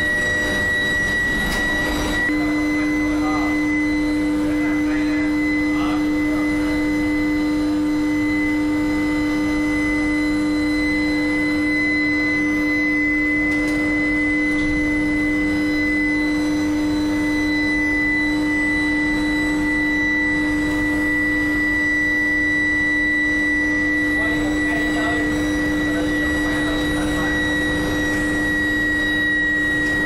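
Billet induction heating furnace running: a steady high-pitched whine over a low hum, which steps up slightly about two seconds in.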